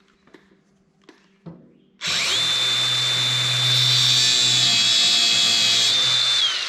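A high-speed power grinder with an abrasive cut-off wheel cuts off a steel stud. Faint handling sounds come first. About two seconds in, the tool spins up to a steady high whine with a hiss of cutting and runs for about four seconds, then starts winding down at the end.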